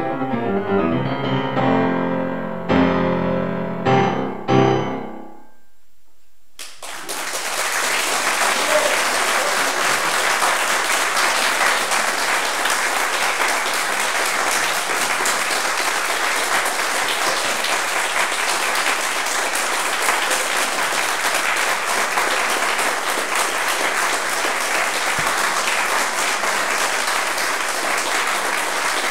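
A grand piano plays the closing chords of a classical piece, ending on a few separate final chords about four to five seconds in. After a brief silence, audience applause breaks out and carries on steadily.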